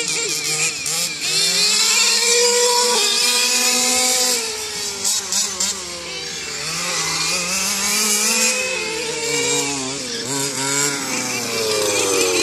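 Small two-stroke engine of a radio-controlled car, revving up and down as the car is driven, its pitch rising and falling again and again and dropping away near the end.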